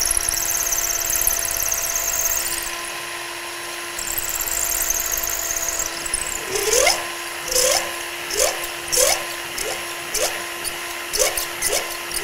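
Power drill running steadily as its bit bores a pinhole into a wooden hinge barrel, with a hiss of cutting wood in two stretches early on. From about halfway comes a run of short rising squeaks, one every half second or so, as the bit works in the hole.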